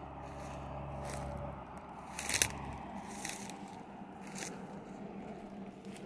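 Footsteps crunching through dry fallen leaves and dry grass, about one step a second, with the leaves crackling underfoot; the loudest crunch comes a little over two seconds in.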